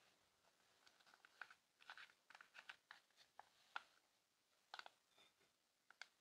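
Faint crinkling and clicking of a plastic squeeze pouch being handled and squeezed in the hand, in a scatter of short ticks.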